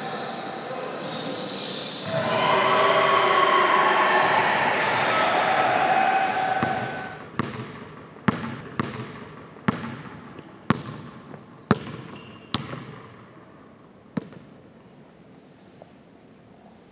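A basketball bouncing on a gym floor, about eight bounces roughly a second apart, each echoing in the hall, with the bounces thinning out and stopping near the end. Before the bounces come a few seconds of loud, dense gym noise.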